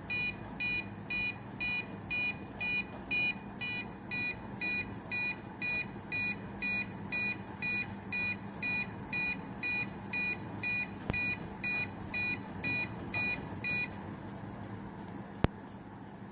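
Piezo buzzer of a homemade gas/smoke detector circuit sounding its alarm: a steady train of short, high-pitched beeps, about two a second, that stops about two seconds before the end. A single sharp click follows about a second later.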